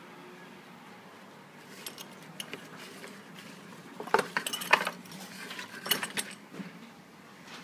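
Metal belt buckle clinking and knocking as the belt is handled in its gift box. Scattered sharp clicks begin about two seconds in, with the loudest cluster about four seconds in and another around six seconds.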